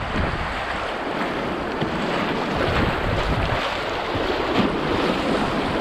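Whitewater rushing and splashing through a shallow river riffle around a kayak, with wind rumbling on the microphone.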